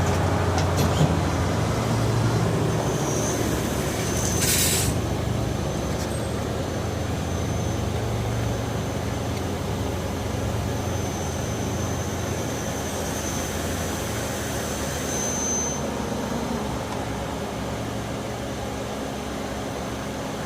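Okuma Crown 762 SBB CNC lathe running: a steady machine hum with a thin high whine that comes and goes, and a short hiss about four and a half seconds in.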